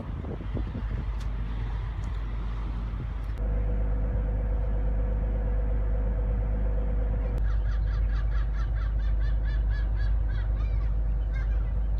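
Wind buffeting the microphone, then the steady low rumble and hum of a car ferry's engines heard on deck. Over it, from a little past halfway, a gull gives a rapid run of repeated calls.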